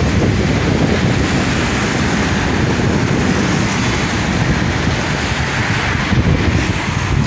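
Wind buffeting the microphone: a loud, steady, rough rumble.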